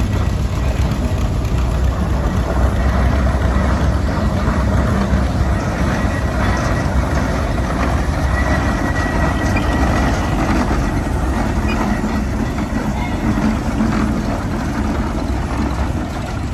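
Case 110 HP steam traction engine running, a loud steady low rumble with no clear exhaust beat.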